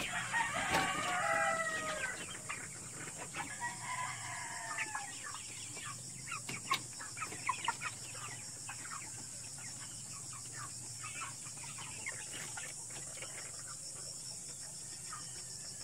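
Chickens clucking and calling, with two longer drawn-out calls in the first five seconds and shorter scattered calls after them. A steady high-pitched hum runs underneath.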